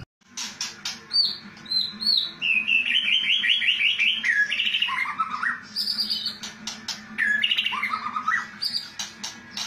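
White-rumped shama (murai batu) singing a dense, varied song after a brief break at the start. It mixes whistled phrases, quick runs of repeated notes that step down in pitch, and sharp clicking 'kretekan' notes.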